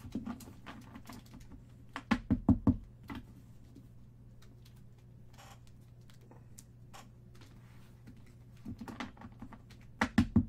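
Stacks of baseball trading cards being tapped square and set down on a tabletop: quick runs of light knocks about two seconds in and again near the end, with a few softer clicks between.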